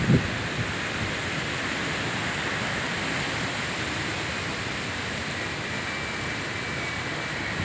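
Steady rushing noise of strong wind and surf at the shore, with a few brief low wind buffets on the microphone at the start.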